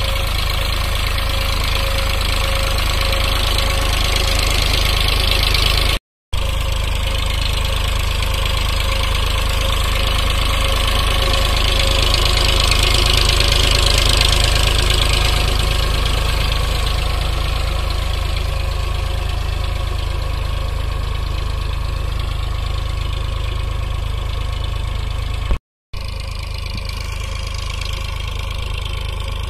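Eicher 551 tractor's diesel engine running steadily, a little louder around the middle. The sound drops out twice for a moment.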